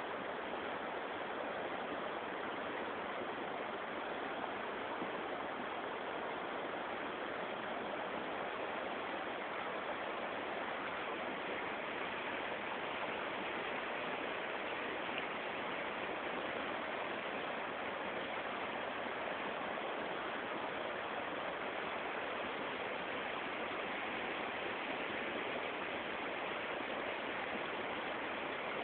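Muddy floodwater rushing steadily down a rocky river channel, a swollen torrent in spate.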